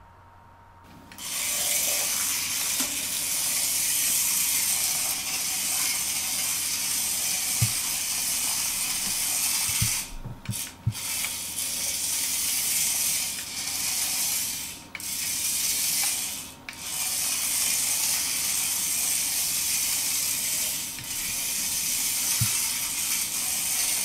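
The tiny electric motor and plastic gearing of a 1:64-scale Nano Racer RC car running as it drives on a laminate floor: a steady high-pitched whir that starts about a second in and cuts out briefly a few times in the middle.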